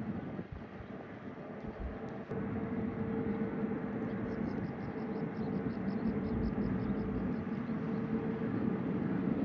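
Jet airliner engines heard from a distance: a steady drone with a hum that comes in about two seconds in, making it slightly louder.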